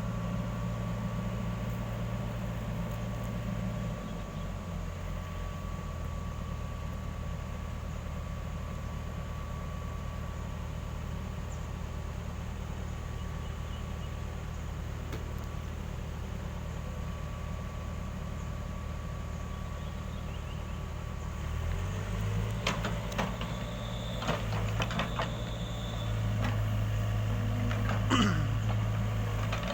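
Excavator's diesel engine running steadily, its pitch shifting about four seconds in and again past twenty seconds. In the last several seconds there are knocks and clanks, a short high whine and a falling squeal.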